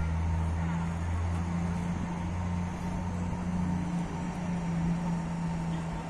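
EP05 electric locomotive moving slowly, with a steady low electrical hum from its running equipment; the deeper part of the hum fades about four seconds in.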